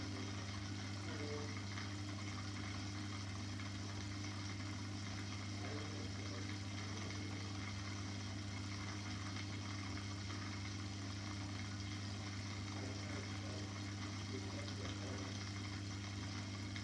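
Aquarium pump running: a steady low hum with an even watery hiss.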